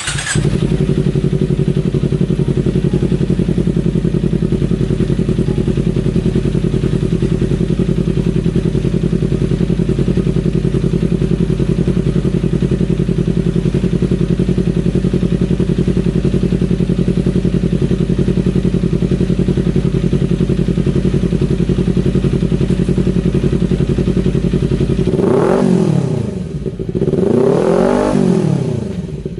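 Kawasaki Ninja 250 (2018) parallel-twin engine idling steadily through a Corse Project carbon-fibre slip-on muffler. Near the end it is revved twice, each rev rising and falling back.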